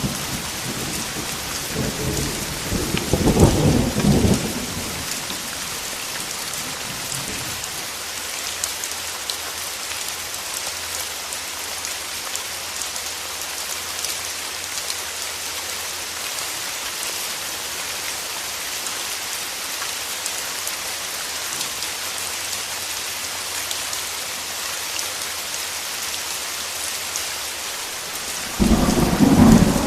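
Steady rain with thunder rumbling twice, once about two to four seconds in and again near the end.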